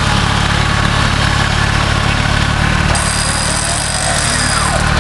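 Off-road trial vehicle's engine running steadily, with a faint high whine joining about three seconds in.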